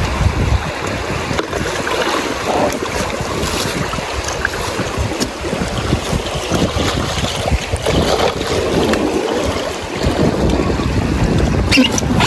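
River water rushing along a rapid, with wind buffeting the microphone in uneven gusts.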